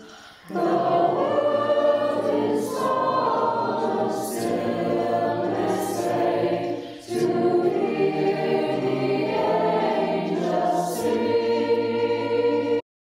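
High school choir singing a holiday carol in held chords, the voices recorded separately at home and mixed together. The singing cuts off abruptly near the end.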